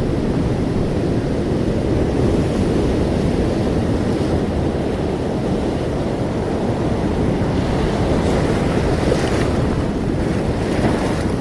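Ocean waves and surf, a steady low rumble of water with wind on the microphone; a brighter hiss of breaking water washes in about eight seconds in and again near the end.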